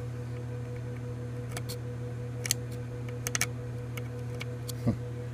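A metal pick scraping and ticking as it catches in the grinder-gouged divots of an amplifier's transistor heatsink pads. It makes a series of irregular sharp clicks over a steady low electrical hum.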